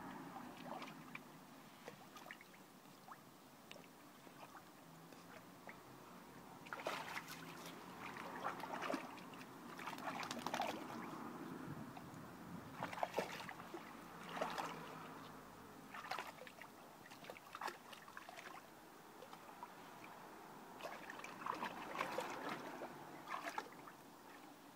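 Water splashing and sloshing in a dog paddling pool as a dog wades and paws at it, in irregular bursts of splashes that grow busier about six seconds in and die down near the end.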